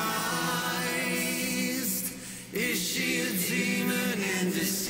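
Layered male vocal recording playing back: a sung lead doubled by octave-shifted vocal layers from pitch-shifting plugins, the layers moving into each other. The singing breaks off briefly about two seconds in.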